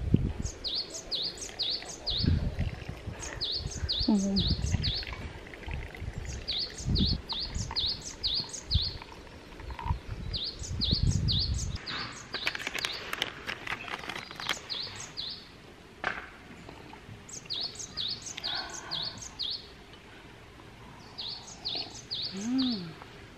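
A small songbird singing the same short phrase of five or six quick, high notes over and over, every few seconds. Under it, low rumbling and handling noise in the first half, then a rustle about halfway through.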